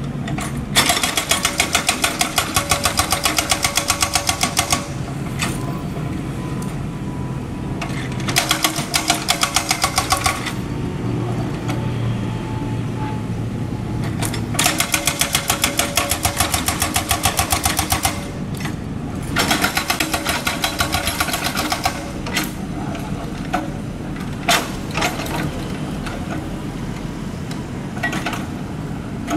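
Mini excavator's diesel engine running steadily, overlaid with four bursts of rapid, even hammering, each lasting two to four seconds, and a few single knocks near the end.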